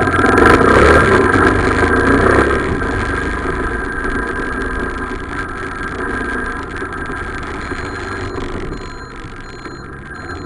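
Motorcycle running through city streets, heard from the rider's bike-mounted camera as steady engine and road noise. It is loudest in the first couple of seconds, then settles.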